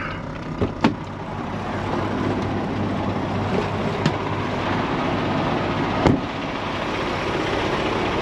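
A Peterbilt semi-truck's cab door unlatching with two sharp clicks a little under a second in and swinging open, letting in a rising rush of outside noise over the steady low hum of the idling truck. Single sharp knocks follow, near the middle and about six seconds in.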